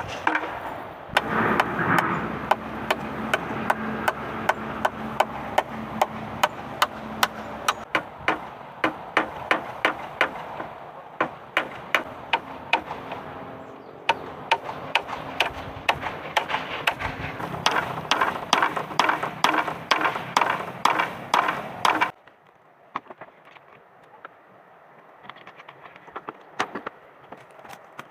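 Rapid, repeated sharp knocks of a hand tool striking, about two a second, cutting off abruptly about 22 seconds in; after that only faint, scattered small sounds remain.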